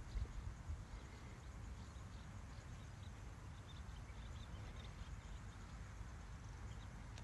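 Outdoor background: a steady low rumble with faint, scattered high chirps of birds; no siren is sounding.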